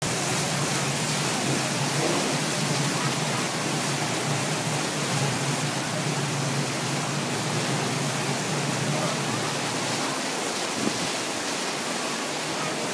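Steady rushing of churned water in a ship's wake, with a low steady hum underneath.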